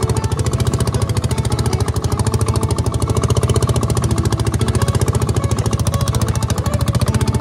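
Improvised boat outboard motor, built from a generator-type engine, running steadily with a rapid, even putt-putt.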